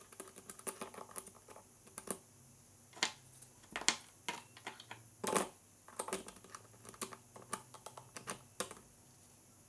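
Planetary gear parts and plastic gear housing of a Crown 18V cordless drill being handled: irregular small clicks and taps of metal on plastic, with a brief scrape about five seconds in.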